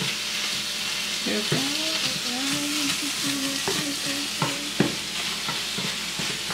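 Tofu and broccoli sizzling in a frying pan while being stirred with a wooden spoon, with a few sharp knocks of the spoon against the pan and a wavering low tone between about one and four seconds in.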